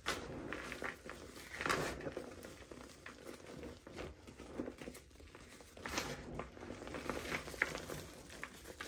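Hands crushing and squeezing dry re-formed cement clumps in a plastic bucket: irregular gritty crunching and crumbling, with louder crunches about two seconds in and about six seconds in.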